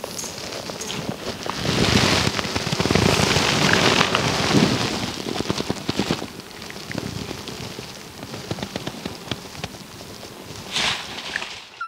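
Dry leaves and twigs crackling and rustling as someone pushes through dense brush on foot, with many small snaps. It is loudest in the first half and thins out after about six seconds.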